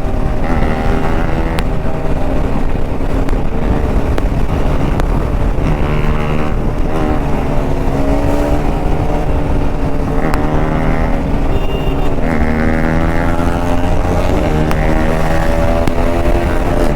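Bajaj Pulsar RS200's single-cylinder engine under hard acceleration, its revs climbing and dropping back through several upshifts. A steady rush of wind runs underneath.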